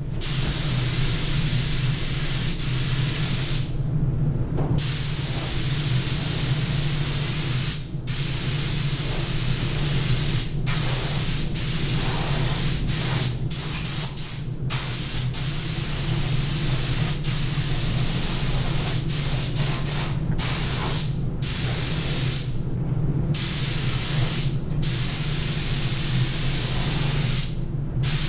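Gravity-feed paint spray gun hissing as it sprays paint onto a car bonnet, cutting off briefly many times, and for about a second twice, as the trigger is released between passes. A steady low hum runs underneath.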